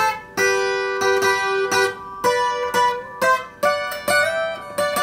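Takamine twelve-string acoustic guitar playing a requinto lead line: about ten single picked notes in a row, with a short slide up in pitch a little past the middle.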